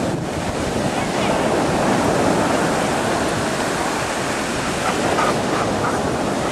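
Steady noise of ocean surf breaking on the beach.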